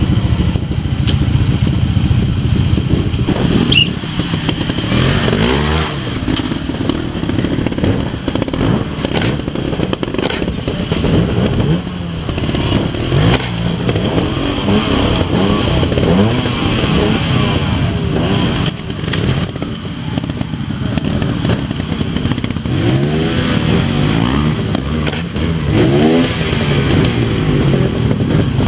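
Trials motorcycle engines revving up and down in repeated rises and falls of pitch as riders climb rock steps, with occasional sharp knocks.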